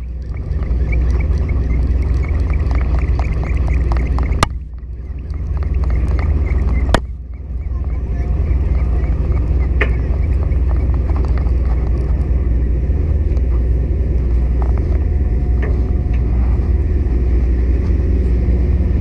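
Fishing boat's engine running with a steady low rumble. A rapid light ticking sounds over it for a few seconds near the start and again around the middle, and the sound breaks off sharply twice.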